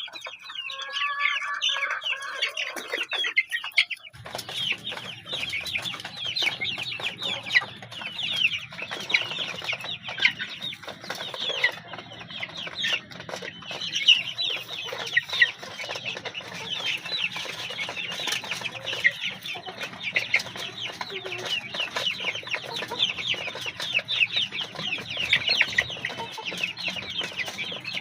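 Young Rhode Island Red chickens, about five weeks old, peeping and cheeping as a flock, many short falling chirps overlapping without pause. A low steady hum joins about four seconds in.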